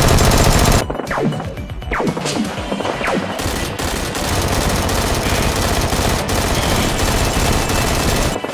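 Rapid automatic gunfire sound effects over background music, densest in the first second and continuing without a break.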